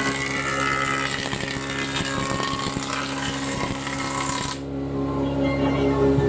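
A woodworking machine runs with a harsh hiss and a rapid crackle, then cuts off abruptly about four and a half seconds in. Steady background music plays beneath it and carries on alone afterwards.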